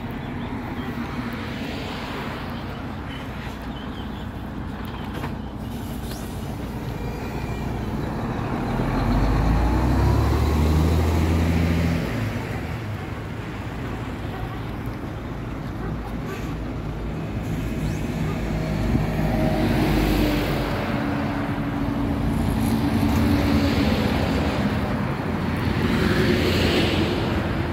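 Motorway traffic noise: vehicles passing, the sound swelling and fading several times, loudest with a deep rumble about a third of the way in.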